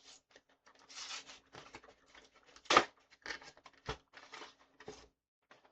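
Pokémon trading cards and booster-pack wrappers being handled: a run of short rustles and soft clicks, with a sharper snap just under halfway through.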